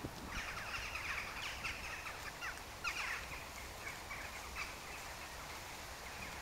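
Birds calling in a rapid chatter of many short, falling chirps, thickest in the first half and thinning out later.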